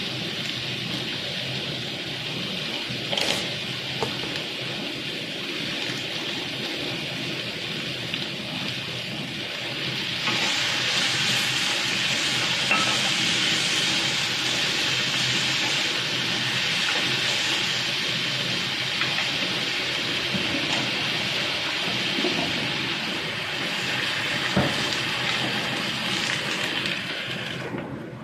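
Beef, bamboo shoot and carrot strips sizzling in a hot wok as they are stir-fried, with a few knocks of the wooden spatula. The sizzle gets louder about ten seconds in and drops off near the end as the glass lid goes on.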